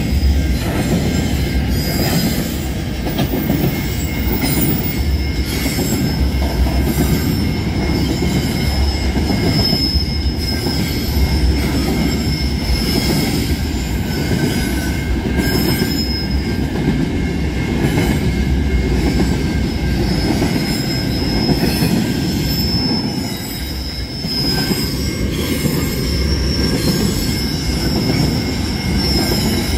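Freight train's container wagons rolling past: a steady rumble of steel wheels on rail with regular clicks over the rail joints and a high wheel squeal that swells and fades. The rumble dips briefly about three-quarters of the way through.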